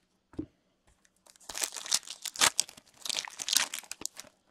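A foil hockey-card pack wrapper torn open by hand, crinkling and crackling in two bursts. A single soft knock comes about half a second before.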